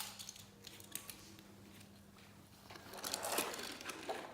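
Quiet room with faint clicks and rattles of small plastic toy cars being handled, mostly in the second half.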